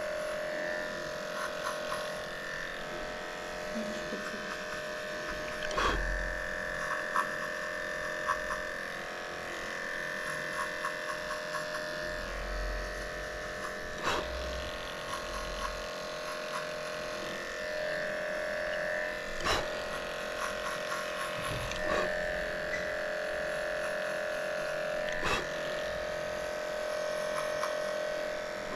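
Cordless pet clippers buzzing steadily while trimming the fur between a dog's paw pads, with a few sharp clicks along the way.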